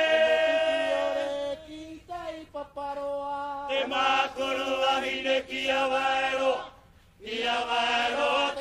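Chanted singing with long held notes, in what sounds like a Polynesian language. It breaks off briefly about seven seconds in, then resumes.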